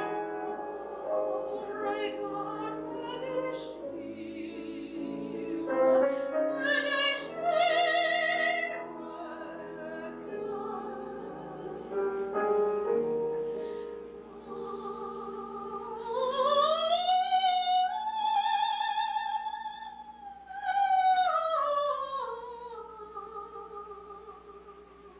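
Operatic soprano singing a French art song with vibrato, accompanied by piano. Past the middle her voice glides up to a long held high note, then descends, and the sound fades near the end.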